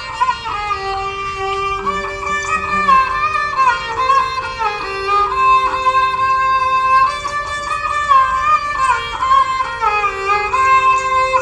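Background music: a bowed string instrument plays a gliding, ornamented melody over steady held lower notes, in an Indian style.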